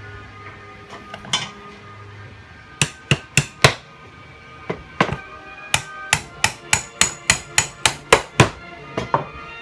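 A hammer knocking a part out of a GM Saginaw power steering pump during a rebuild: about twenty sharp strikes, a few spaced ones and then a quicker run of about three a second.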